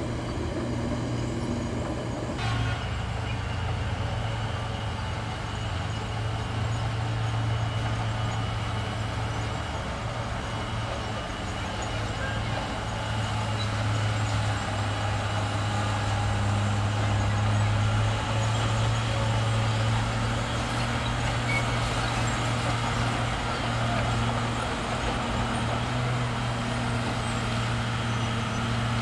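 Bulldozer's diesel engine running steadily under work, with a low hum whose pitch shifts a little now and then.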